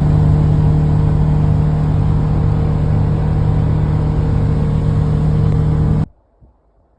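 A loud, steady mechanical hum with a constant low pitch, cutting off suddenly about six seconds in.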